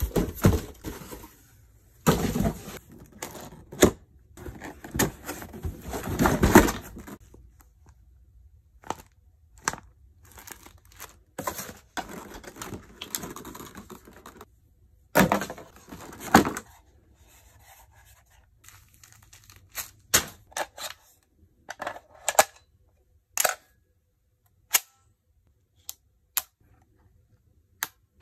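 Cardboard box and packaging rustling and scraping over the first several seconds and again midway, then scattered short clicks and knocks as a plastic-and-metal M4-style airsoft rifle is handled.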